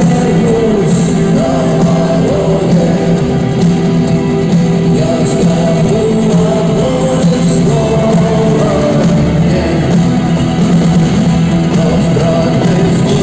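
Live rock band playing a song with singing over a full band, loud and continuous.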